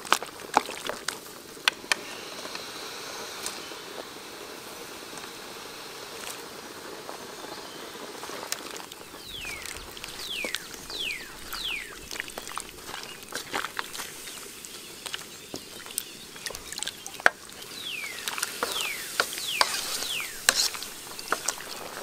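A pot of soup boiling, bubbling with sharp pops and crackles. Two runs of short, high, falling chirps come in about ten seconds in and again near the end.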